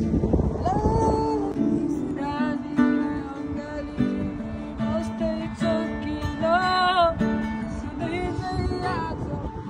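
Acoustic guitar strummed with a voice singing a melody over it, holding a wavering note about two-thirds of the way through.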